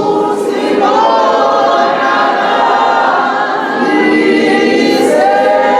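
A group of voices singing together without instruments, holding long drawn-out notes of a worship chorus.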